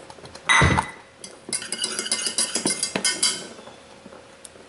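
A knock about half a second in, then a wire whisk clinking rapidly against the side of a stainless steel saucepan as thick cooked cornstarch pudding is stirred, for about two seconds before fading to a few light taps.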